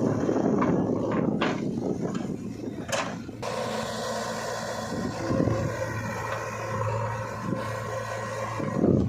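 Diesel engine of heavy earthmoving machinery running steadily, with rough scraping early on, several sharp knocks and one loud knock about three seconds in.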